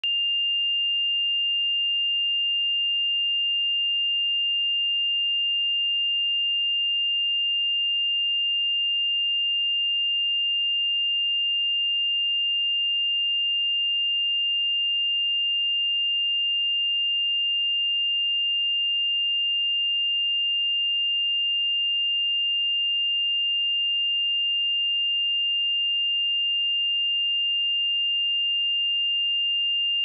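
A single steady sine-wave test tone at 2803 Hz, a pure high-pitched tone held at one pitch and level with no breaks.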